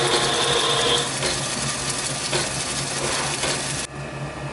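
Metal-working lathe running fast while a centre drill in the tailstock chuck bores into the end of a brass bar. A high whine is heard for about the first second, then a few light clicks. The machine noise drops off sharply near the end.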